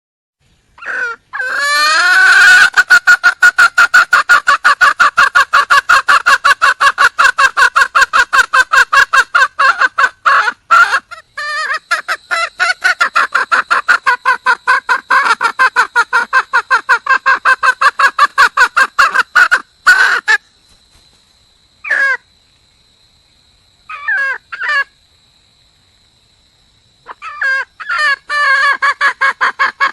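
Red junglefowl hen calling for a mate: a long, fast run of repeated clucks with a brief break about ten seconds in. It stops about twenty seconds in, gives a few short bursts, then starts the rapid run again near the end.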